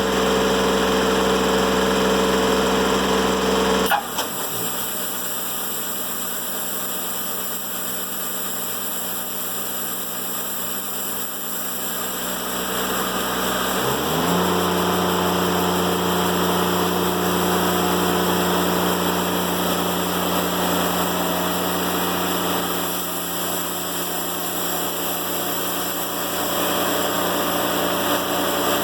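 Diesel engine of a TimberKing 1400 sawmill running steadily. About four seconds in there is a click and the engine sound suddenly drops in level, and about fourteen seconds in the engine speeds up, rising in pitch, then holds a steady higher speed.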